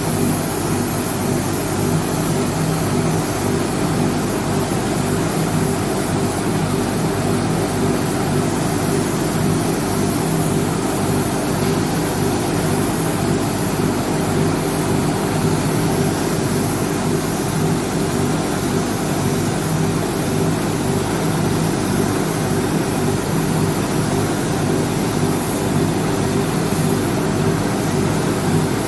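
A steady machine hum with hiss, running unbroken throughout, like a motor.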